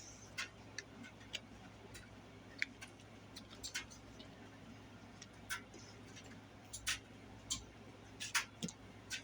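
Wet mouth clicks and lip smacks from chewing a sticky peanut butter sandwich. They come at irregular intervals over a faint steady low hum, with a cluster of louder smacks near the end.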